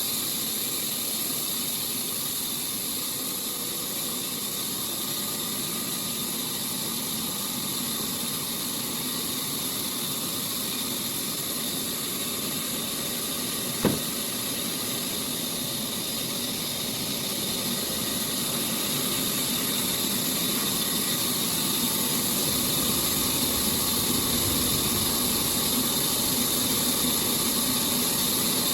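Sawmill machinery running steadily with a hissing whir. One sharp click comes about halfway through, and the sound grows slightly louder in the last third.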